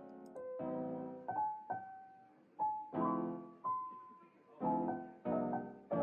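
Background piano music: chords and single notes struck every second or so, each ringing out and fading.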